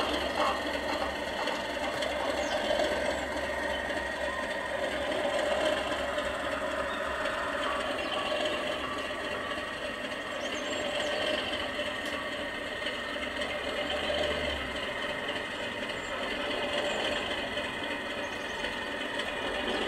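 Sound-fitted OO gauge Class 37 model locomotive playing its recorded English Electric V12 diesel engine sound through its small onboard speaker, running steadily as the locomotive moves slowly.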